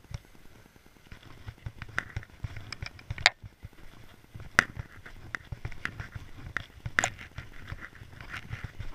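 Footsteps crunching in fresh snow, an irregular crackle with low thuds, broken by a few sharp clicks, the loudest about three, four and a half and seven seconds in.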